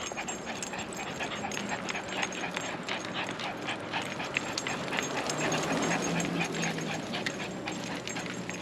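A dog panting rapidly close to the microphone, several breaths a second.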